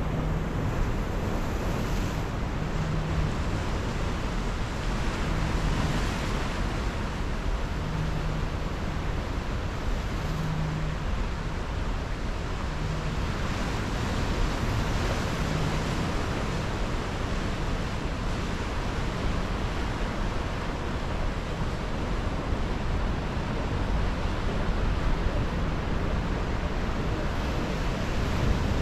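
Ocean surf washing steadily against jetty rocks, with wind buffeting the microphone. A short low tone pulses about every two and a half seconds through the first half.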